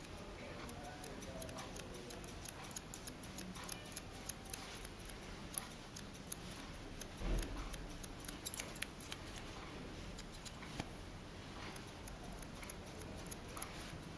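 Barber's scissors snipping in quick, irregular runs as they trim short hair along the nape of the neck, with a dull bump about seven seconds in.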